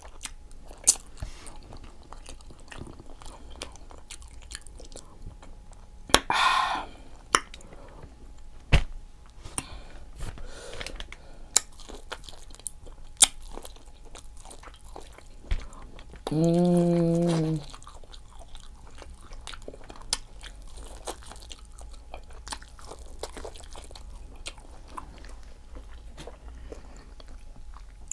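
Close-miked chewing and biting of seafood-boil food, with many wet mouth clicks and smacks. A short hum of about a second from the eater comes a little past the middle.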